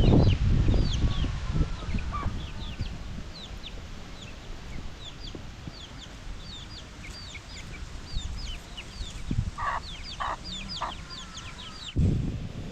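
Chickens calling: many short, high, falling cheeps throughout, with three louder clucks about ten seconds in. There is a low rumble at the start and again near the end.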